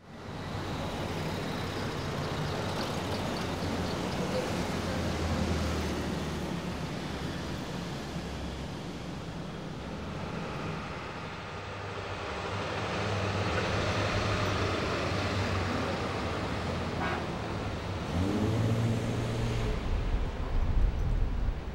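City street traffic noise that starts suddenly: a steady hum of cars and trucks driving by. Near the end a vehicle passes close with a short glide in pitch.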